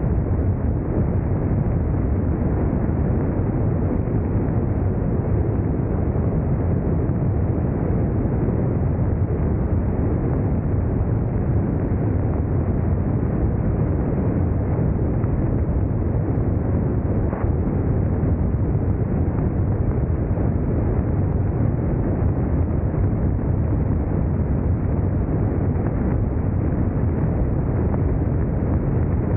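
Steady wind rush and road noise from a BMW K1600 GTL touring motorcycle under way, with no change in speed or pitch.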